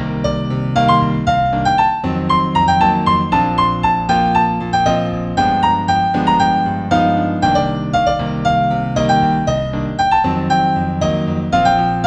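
Instrumental piano music: a melody of single struck notes, a few per second, over held lower chords.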